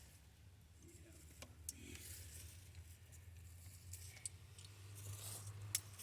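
Faint handling noises, a few small clicks with one sharper click near the end, over a low steady hum.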